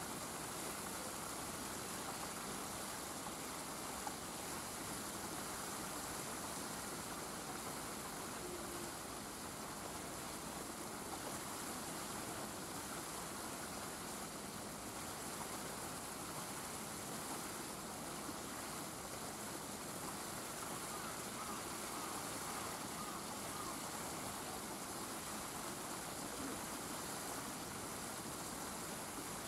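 Steady outdoor background hiss with no distinct sound standing out, and one faint click about four seconds in.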